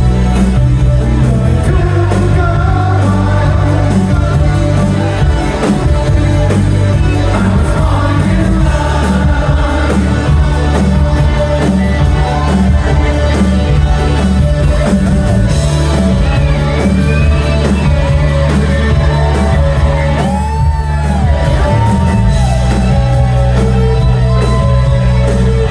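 Live rock band playing loudly in a large hall, with a driving, pulsing bass line and a lead singer's voice over it, and occasional shouts from the crowd.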